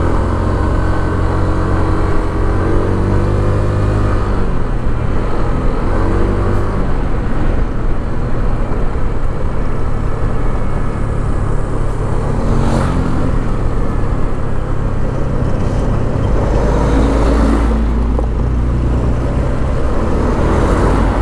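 Honda scooter's engine running on the move under wind and road noise, its pitch rising and falling in the first few seconds, with two louder rushes of noise past the middle.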